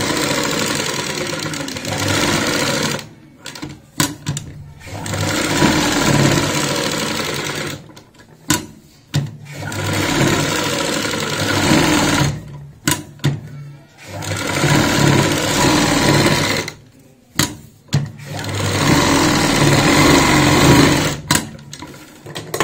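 Black domestic straight-stitch sewing machine stitching through layered fabric in five runs of two to four seconds each. Short pauses between the runs hold a few sharp clicks and knocks as the work is stopped and turned.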